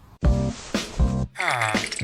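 Background music kicks in about a quarter second in: a pop track of short, punchy pitched notes over a bass beat, with one falling pitch glide about halfway through.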